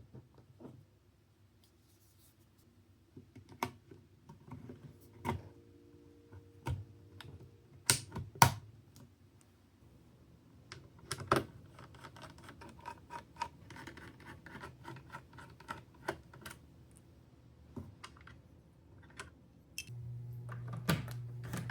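Irregular clicks, taps and light scratching of hard plastic and metal computer parts being handled while a motherboard is prepared. A steady low hum comes in near the end.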